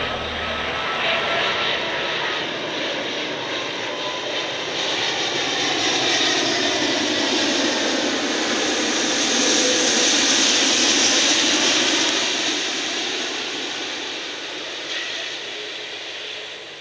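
Jet engine noise of an Airbus A380 on landing approach, its four Rolls-Royce Trent 900 engines making a steady rushing roar with a faint whine slowly falling in pitch. It swells to its loudest a little past the middle and eases off toward the end.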